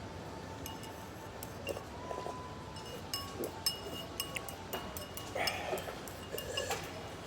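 Tableware clinking: a scattered series of light, sharp clinks with brief high ringing, over a low background murmur.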